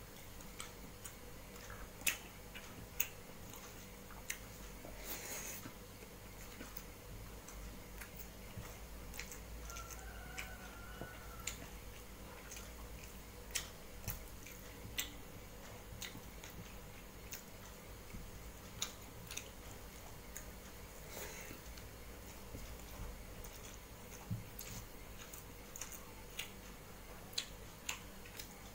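A person eating rice and curry by hand from a steel plate: chewing, with irregular sharp clicks from the mouth and the fingers working the food on the plate, over a faint steady low hum.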